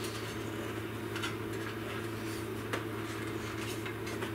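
Steady low hum of room tone with a couple of faint clicks, about a second and nearly three seconds in, from hands handling wires and connectors on the motorcycle's battery box.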